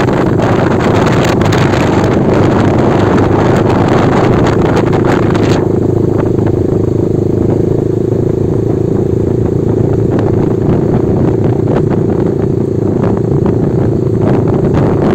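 Motorcycle engine running steadily while riding, with wind rushing over the microphone; the rushing drops off about five and a half seconds in.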